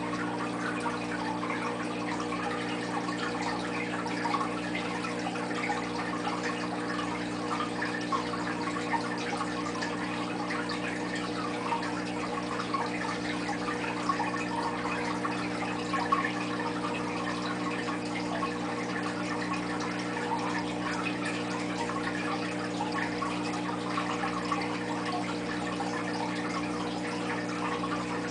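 Aquarium pump running with a steady low hum under continuous trickling, bubbling water, with a few brief louder drips.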